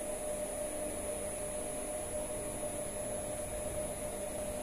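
Permanent magnet synchronous motor running steadily on its inverter drive at about 1600 rpm: an even hum with a steady mid-pitched tone and a thin high-pitched whine.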